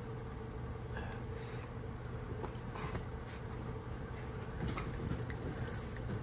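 Two dogs play-fighting on a bed: scuffling and rustling in the bedding, with occasional low dog vocal sounds, over a steady low hum.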